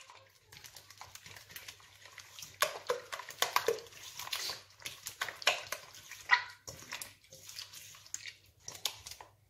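A hand squishing and sloshing a runny egg, oil and honey mix in a stainless steel bowl, a string of irregular wet squelches and small splashes, busiest in the middle.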